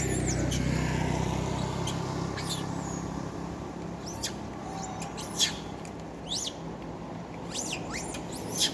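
Long-tailed macaques giving short, high squeaks at scattered moments, some sliding in pitch. A low steady hum sits under the first two to three seconds and then fades.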